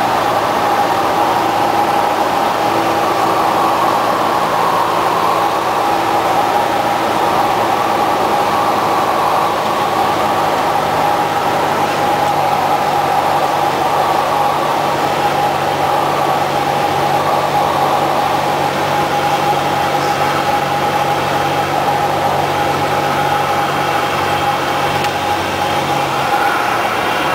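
Piston engine and propeller of a light single-engine airplane droning steadily inside the cockpit, with rushing airflow, during the final approach to landing. The low engine notes fade near the end as the plane comes down onto the runway.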